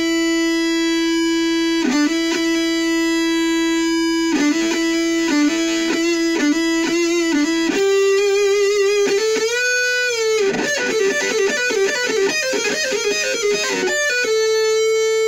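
Jackson King V (KVXMG) electric guitar played lead with heavy distortion: a long sustained note, a short riff, a wavering bent note about ten seconds in, a quick run of picked notes, and another long held note near the end.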